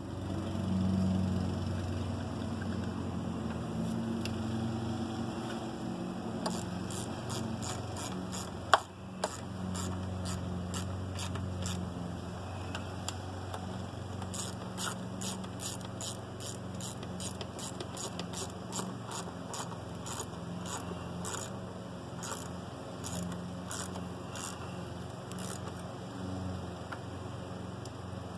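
Ratchet clicking in repeated short runs as the intake manifold fasteners are tightened down, over a steady low hum. One sharp knock about nine seconds in.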